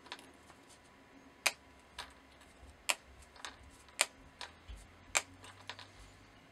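A string of irregular sharp clicks and ticks as red through-hole LEDs are pulled out of their paper tape and set down on the work mat.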